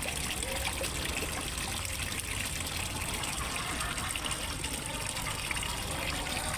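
Water steadily trickling and splashing into a fish pond.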